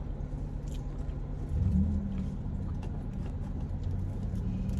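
Car engine idling, a steady low hum that swells briefly about a second and a half in, with faint small clicks over it.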